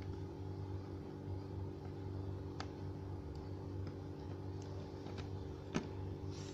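A few sharp clicks and taps of laptop parts being handled, the loudest near the end, over a steady electrical hum.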